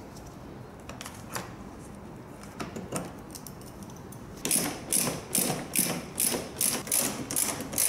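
Hand-turned hex driver clicking as it backs out a 4 mm hex screw holding the fuel tank. A few scattered clicks come first, then about four and a half seconds in a quick run of clicks at about four a second.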